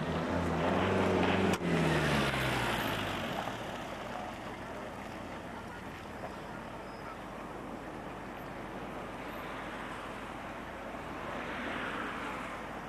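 A motor vehicle passing by, its engine note falling in pitch over the first three seconds and fading. Near the end a car approaches and grows louder.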